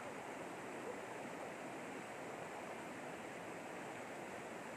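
Shallow, rocky river flowing over stones and small rapids: a steady rush of water.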